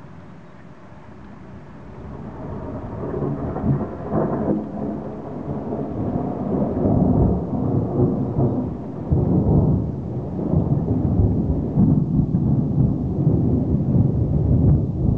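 A low rumble without any clear tone that builds over the first few seconds, then stays loud with uneven swells.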